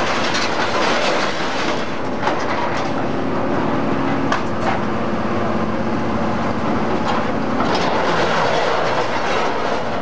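Heavy machinery running with a steady hum while an excavator's grapple handles scrap metal. Loose steel scraps clank and rattle, with sharp metallic knocks throughout.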